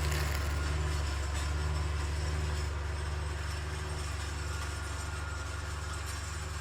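Small electric motor of a homemade miniature toy tractor running steadily with a low hum, slowly getting quieter.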